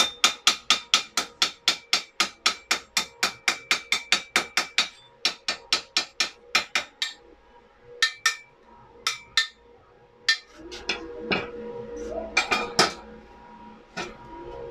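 Chipping hammer knocking slag off a fresh stick-weld bead on thin galvanized square tube: quick, even metallic taps about five a second, then slower, scattered taps.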